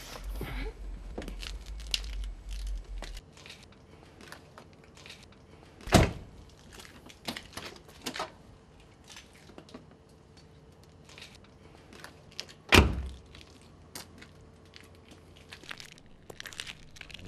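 Car doors being shut: two loud thuds about seven seconds apart, with small clicks and rustling between them.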